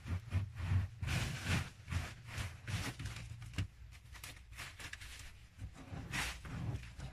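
Loose dry earth being scraped and scooped up by hand, a run of irregular scraping and rustling strokes, with the strongest a little after a second in, near three seconds and about six seconds in.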